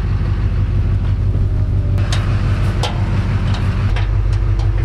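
Pickup truck engine idling steadily, with a few sharp knocks about two and three seconds in.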